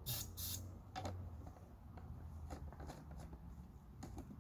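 Faint handling sounds at a PVC potato cannon being readied: two short hisses in the first half second, then scattered light clicks and knocks.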